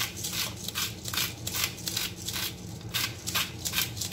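Salt shaken from a shaker bottle over a bowl of salad: a regular rattle of short shakes, about three a second, over a faint steady low hum.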